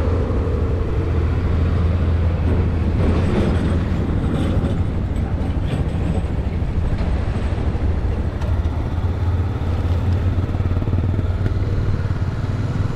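Honda XRE 300 single-cylinder motorcycle engine running steadily on the move, with wind and road noise over it.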